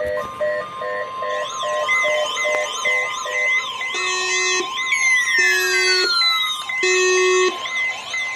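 Several weather-radio alarms sounding together for a tornado watch. A steady high alert tone runs under a rapid up-and-down electronic siren warble, with beeping two-note chirps that stop about three seconds in, a few longer low beeps and a couple of falling whistle-like glides around the middle.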